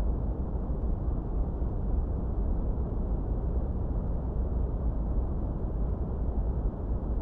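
Steady generated masking noise: an even, unchanging rumble, strongest deep in the bass with only a faint hiss above, closer to brown noise than to true white noise.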